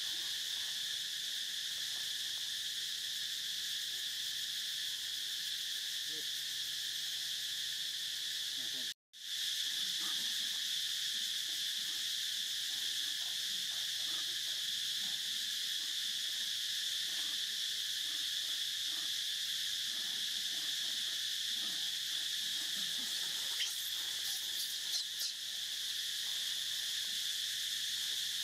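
Steady, high-pitched insect chorus, a continuous shrill drone that cuts out for a moment about nine seconds in, with a few faint clicks near the end.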